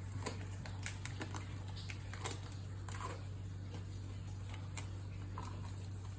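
Plastic film crinkling in small, scattered crackles and clicks as it is stretched over a bowl, over a steady low hum.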